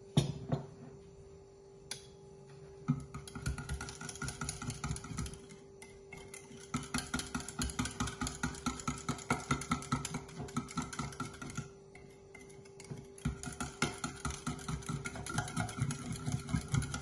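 Small wire whisk rattling quickly against the inside of a ceramic mug, beating a watery tomato paste and curry sauce. It comes in three spells of rapid taps with short pauses between, after a single knock at the very start, over a faint steady hum.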